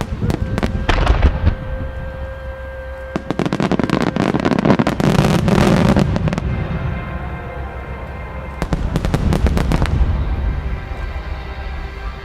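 Starmine fireworks display of eight-inch (hachi-go) aerial shells fired in rapid volleys: a dense run of bursts at the start, a longer, louder barrage from about three seconds in to past six seconds, and another run of bursts around nine seconds. Music with steady held tones plays underneath throughout.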